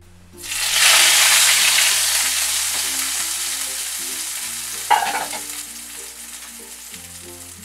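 Hot tempering oil with cumin seeds and dried red chillies poured onto cold yogurt, sizzling sharply the moment it hits and then slowly dying away. A single sharp click comes about five seconds in.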